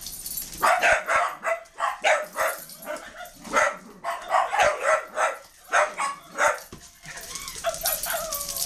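Small dogs barking over and over in short, sharp yaps, with a longer falling whine near the end.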